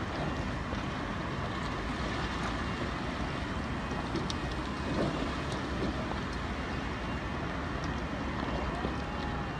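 Steady low rumble and hiss of outdoor ambience with wind buffeting the microphone, and a few faint clicks.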